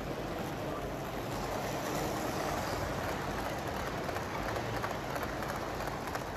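HO scale model train with blue ICF coaches rolling past on its track: a steady rumble of wheels on rail that swells as the coaches go by, about two seconds in, with faint clicks.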